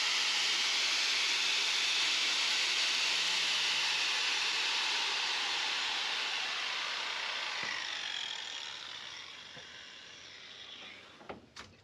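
Angle grinder grinding down steel weld seams on a car body's rear window channel, a steady hiss of disc on metal. The sound fades away over the last few seconds, with a couple of sharp clicks near the end.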